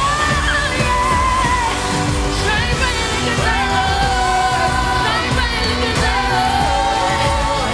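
Pop song with a singing voice holding long notes with vibrato over a band with a steady beat.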